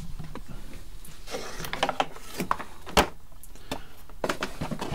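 Handling noise from a foam RC model plane being turned upside down on a workbench: soft rubbing and scattered light knocks and clicks, the sharpest about three seconds in.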